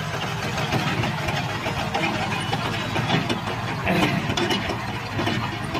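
Sonalika DI 35 tractor's diesel engine running steadily with a fast, rattling beat as it pulls a trailer loaded with soil, with a few brief louder rattles partway through.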